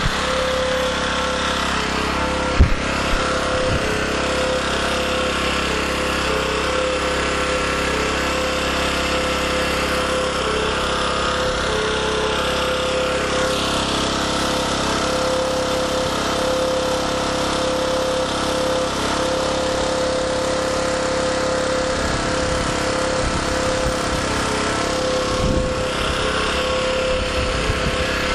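Small portable gasoline generator engine running steadily under load, taking in hydrogen-oxygen (HHO) gas from the electrolysis cell it powers. A single sharp knock sounds about two and a half seconds in.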